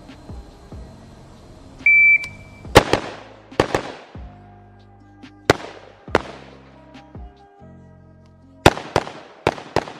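A shot timer beeps once about two seconds in, then a rifle fires in quick pairs while the shooter moves between targets, the last shot just before the end. The beep is the start signal for a timed run of about eight seconds, from beep to final shot. Background music plays underneath.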